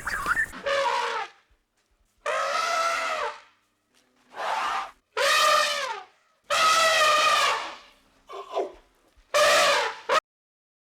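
An animal calling repeatedly: about seven drawn-out, pitched calls, each lasting roughly half a second to a second, with short silent gaps between them, stopping abruptly near the end.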